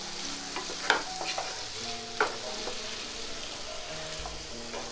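Mixed vegetables in tomato-onion masala sizzling in a nonstick frying pan while a wooden spatula stirs them. The spatula scrapes and taps sharply against the pan about a second in and again just past two seconds.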